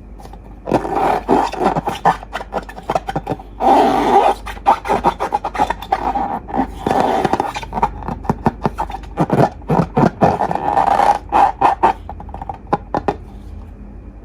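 Slime being squeezed and kneaded by hand: wet squelching with dense crackling pops of air bubbles, in several spells of a second or two, stopping a little before the end.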